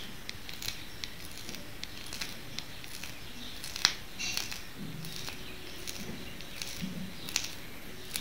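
Small scattered clicks and crinkles from handling a piping bag and turning a metal flower nail while piping whipped-cream petals, with one sharper click about four seconds in.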